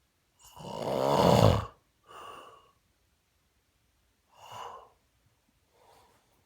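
Snoring in sleep: one loud, long snore lasting about a second and a half, followed by a shorter, softer breath, a third breath about four and a half seconds in, and a faint one near the end.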